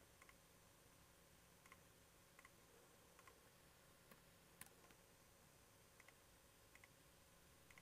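Faint computer mouse clicks, roughly one a second, with one sharper click about halfway through, over near silence: clicks placing outline points while tracing a shape.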